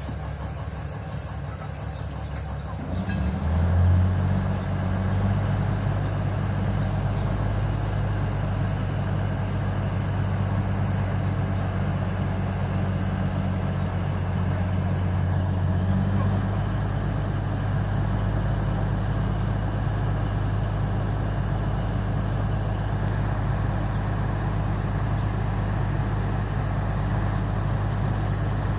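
Alishan Forest Railway DL-40 diesel locomotive's engine running. About three seconds in it picks up to a louder, steady low drone, which eases slightly around sixteen seconds.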